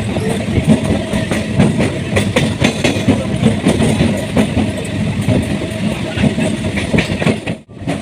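Local electric train running, its wheels clattering over the rail joints in a steady stream of clicks and rattles. The sound cuts out abruptly for a moment near the end.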